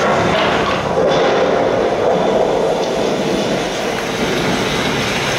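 Dolby Atmos demo soundtrack played loudly through a Sony HT-Z9F soundbar with rear speakers, heard in the room: a steady, dense wash of sound with no speech.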